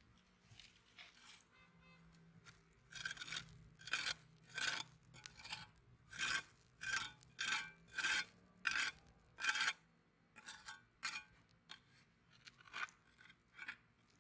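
Steel pointed trowel scraping and digging through loose moulding sand, uncovering a fresh casting. After a quieter start comes a quick run of short scrapes, about two a second through the middle, thinning out near the end.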